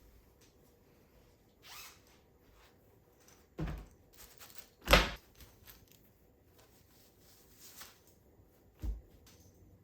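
A few separate thuds and knocks of household objects being handled, the loudest about five seconds in.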